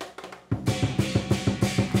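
Chinese lion dance drum and cymbals. After a brief lull with a few light taps, the drum comes back in loudly about half a second in, beating fast and steadily, with the cymbals crashing over it.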